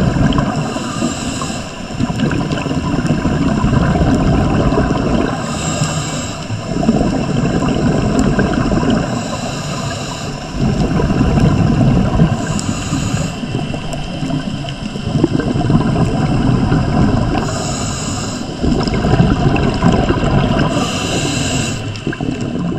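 Underwater sound of scuba breathing through a regulator: long gurgling rushes of exhaled bubbles alternate with short hissing inhalations, six breaths in a slow, regular cycle.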